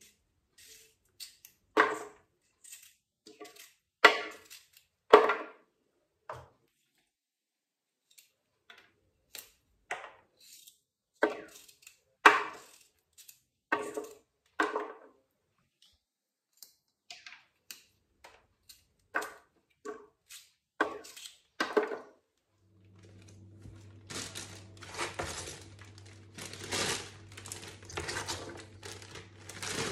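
Runner beans being cut with a knife and the pieces dropping into a plastic bowl: irregular sharp clicks and knocks. Near the end this gives way to a continuous rustle of handfuls of cut beans being scooped into a plastic freezer bag, with a low steady hum under it.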